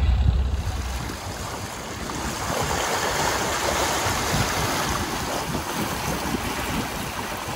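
Bow wave rushing and splashing along a sailboat's hull as it moves through calm sea. A low rumble at the start stops within the first second.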